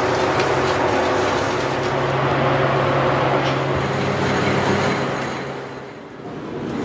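Steady hum and rush of electric machinery running, fading out about six seconds in.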